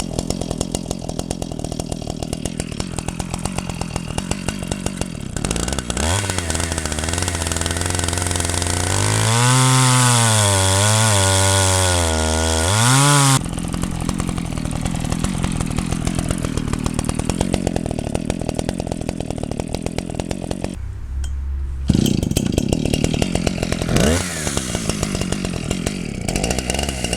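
Zomax 74 cc two-stroke chainsaw running at idle, then revved up a few seconds in and held at high speed for about four seconds with its pitch wavering, before dropping back to idle. Two short blips of the throttle come near the end.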